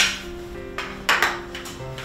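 Light background music with two sharp clinks of kitchenware being handled on the counter, one right at the start and a louder-ringing one about a second in.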